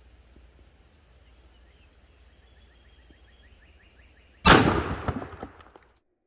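A single 10-gauge shotgun shot firing a 3½-inch Federal Power-Shok slug, about four and a half seconds in: one sharp, very loud report that dies away over about a second and a half, then cuts off suddenly.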